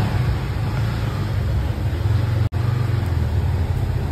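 An engine running at a steady idle, a loud low rumble. It cuts out for an instant about two and a half seconds in.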